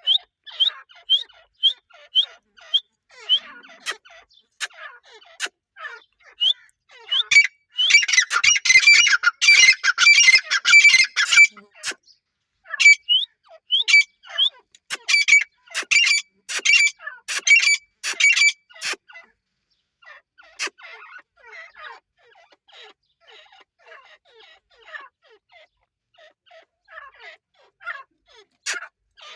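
Teetar (francolin) calling: a string of short, sharp, rising notes. They turn into a dense, loud run of rapid calls from about 8 to 12 seconds in, then come at a steady pace until about 19 seconds, and are fainter after that.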